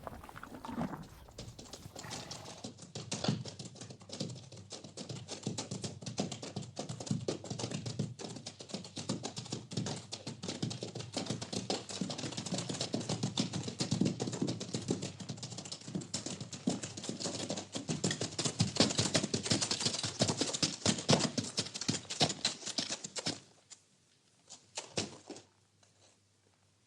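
Horse stable sounds: close, dense crackling and rustling with low thuds, as of a horse working at hay and shifting about. It stops suddenly near the end.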